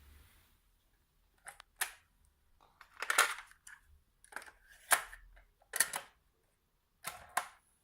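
Hitachi TRK-6700H boombox's cassette deck being operated: a string of about eight irregular mechanical clicks and clunks, some in quick pairs, from its keys and mechanism.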